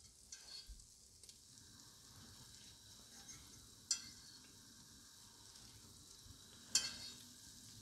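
Butter sizzling faintly as it melts in a hot enamelled cast-iron pot on a gas flame while it is spread around, with two short, sharp crackles, about four seconds in and near seven seconds.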